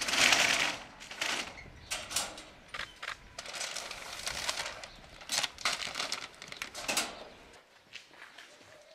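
Plastic bags rustling and things knocking as bagged food is taken out of the back of a van, in a string of short noisy bursts, loudest right at the start and dying away about three quarters of the way through.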